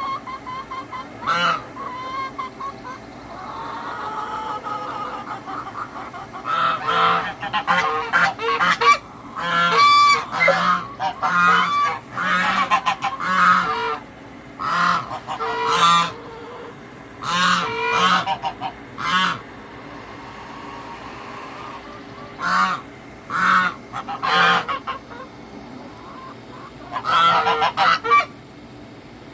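Domestic geese honking loudly in repeated runs of short calls, with quieter lulls between the bouts.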